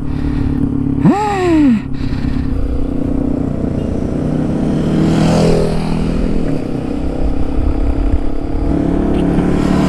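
Motorcycle engine running under way, with wind rushing over the microphone. About a second in the engine revs up sharply and falls straight back.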